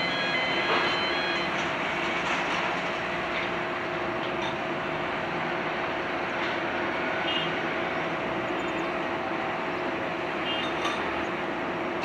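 Jet airliner engines running steadily at taxi power, a Boeing 787-8 moving slowly along the taxiway: an even rushing noise with a steady hum under it.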